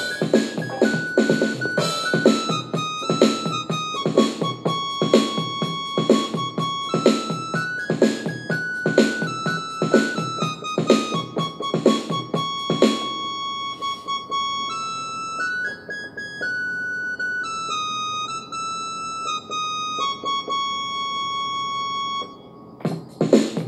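Portable electronic keyboard played by hand: a single-note melody over a steady rhythmic accompaniment. About halfway through the accompaniment stops, leaving the melody alone in held notes, and a brief loud burst of sound comes near the end.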